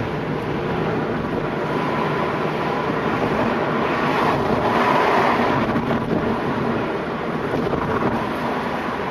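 A Sapporo streetcar passing close alongside a moving car, heard from inside the car. Its running noise swells over the steady road noise to a peak about five seconds in, then fades.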